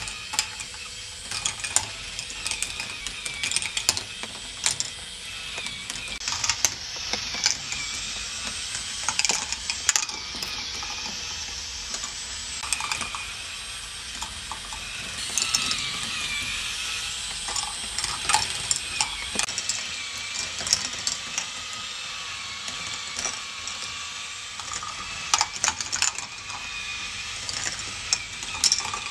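K'nex ball machine running: plastic balls clicking and clattering along the tracks and lifts over the steady whirring rattle of the lift mechanisms, with frequent sharp clicks.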